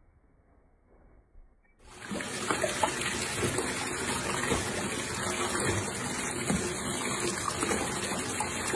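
Near silence, then about two seconds in a steady rush of water begins as a bathtub fills from the tap.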